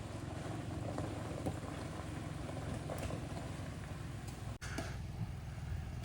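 Off-road truck driving slowly on a trail: a steady low engine drone under tyre and road noise, broken by a brief dropout about three quarters of the way through.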